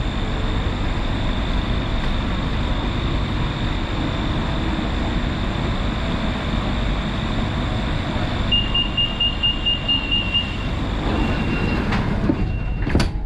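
Inside a BTS Skytrain car: steady train noise with a constant high whine. About two-thirds of the way through comes a rapid run of high beeps, about five a second for two seconds, then two longer beeps and a sharp knock near the end, typical of the door-closing warning and the doors shutting.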